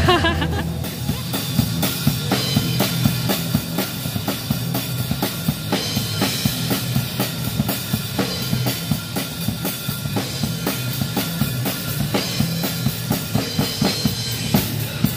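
Music led by a drum kit playing a steady beat on bass drum and snare, about three or four strikes a second.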